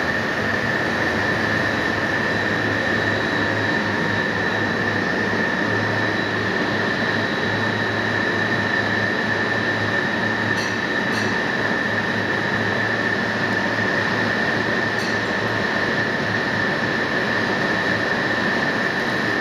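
Extrusion lamination plant running: a steady, unchanging machinery noise with a constant high whine over a low hum.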